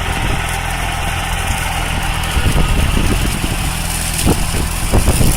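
An engine running steadily at a low, even speed, with a few short knocks in the last second or two.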